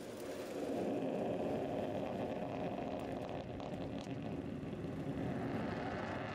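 CERES-1 solid-fuel rocket's exhaust noise during ascent: a steady, deep rushing rumble that grows louder about a second in and then holds.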